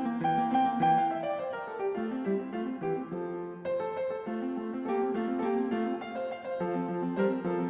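Background piano music, a steady run of plucked-sounding keyboard notes.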